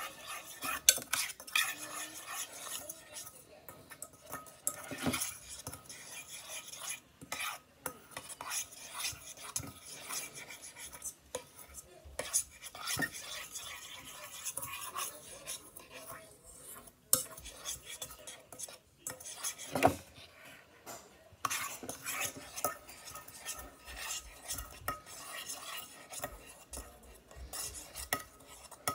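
A doll fork stirring slime in a small stainless-steel pot, with irregular clinks and scrapes of the fork against the metal sides and bottom.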